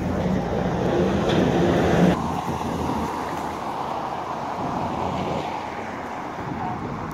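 Outdoor waterfront ambience: wind buffeting the microphone over traffic noise, louder for the first two seconds and then changing abruptly to a quieter, even rush.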